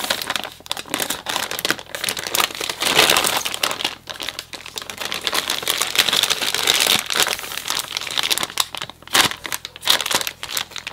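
Thin clear plastic grow bag crinkling and rustling as its top is cut open with a scalpel and handled and folded by hand, in a dense run of crackles with short lulls about four and nine seconds in.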